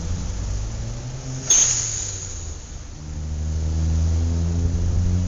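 City street traffic: vehicle engines running, with a sudden sharp sound about a second and a half in, then an engine growing louder from about three seconds as a vehicle pulls away or passes close.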